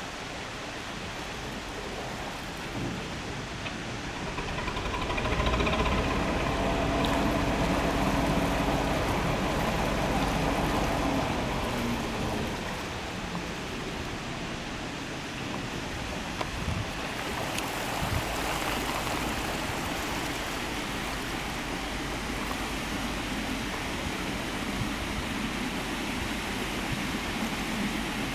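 Narrowboat's engine running as it manoeuvres, a pitched hum that swells about five seconds in and eases off by about twelve seconds, over a steady rushing noise.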